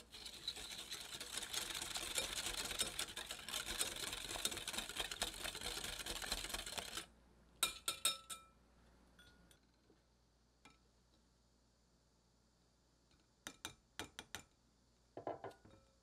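Wire balloon whisk beating egg whites with sugar and salt in a glass bowl: a fast, steady clatter of the wires against the glass that stops about seven seconds in. A few sharp clinks with a short ring follow, and a few more small clinks near the end.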